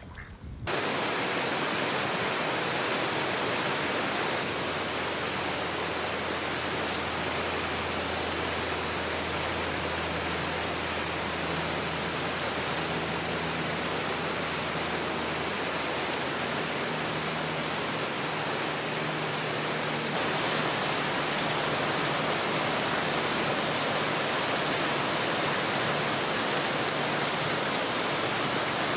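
Steady, even rushing hiss that starts abruptly just under a second in and holds without a break, stepping up slightly about twenty seconds in.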